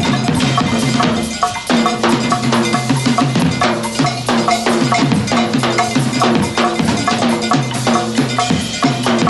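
Hand-held cowbell-like percussion struck in a rhythmic pattern with drums, as a percussion passage in a live jazz big band piece.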